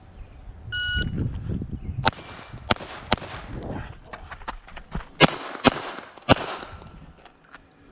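A shot-timer start beep, then scuffing movement and a string of Glock 44 .22 LR pistol shots, about six loud ones spread over some four seconds with fainter cracks between.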